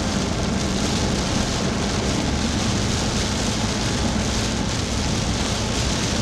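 Heavy rain falling on a car's roof and windshield, heard from inside the moving car, mixed with the steady noise of driving on a wet road and a low steady hum.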